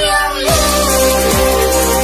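Electronic background music: a new section starts about half a second in, with held synth chords over deep bass hits that drop in pitch, a little under a second apart.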